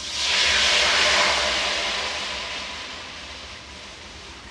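Milk poured into a hot kadhai (wok) straight after roasting vermicelli in it, hissing and sizzling loudly as it hits the hot metal and flashes to steam. The hiss starts suddenly, peaks about a second in, and dies away gradually as the pan cools.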